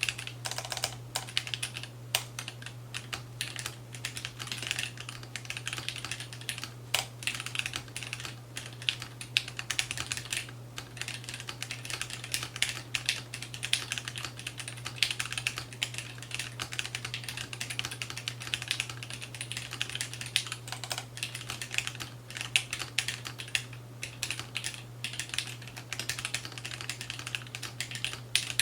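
Continuous typing on a Keebio Quefrency split mechanical keyboard with lubed Gateron Black linear switches and PBT keycaps: a dense, uneven stream of keystroke clacks, with a steady low hum underneath.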